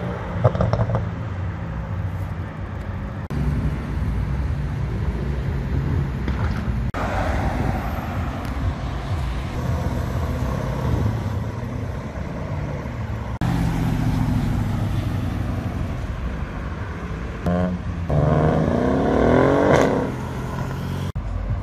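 Car engines accelerating hard on a street, in several short takes joined by sudden cuts. Near the end one engine revs up, its pitch rising steeply before dropping away.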